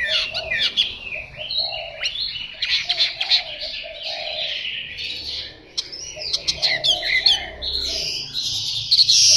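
Chinese hwamei singing a long, loud, varied song of rapid whistled phrases, slurred sweeps and trills, with hardly a break.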